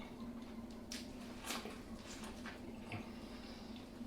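Faint wet eating sounds from a seafood boil in butter sauce: soft squishes and a few small clicks from chewing and handling the saucy food, over a steady low hum.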